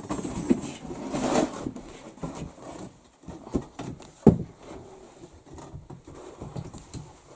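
Scattered knocks, clinks and scraping as bricks and grate pieces are set into a brick stove's firebox, with one sharp knock about four seconds in.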